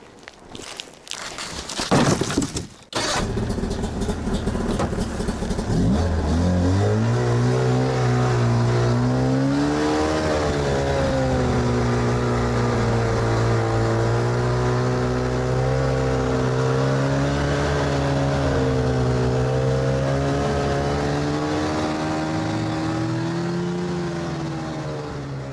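A few loud knocks, then a snowmobile engine starts, revs up and runs as it drives off towing a sled. Its pitch rises and falls gently, and it eases off near the end.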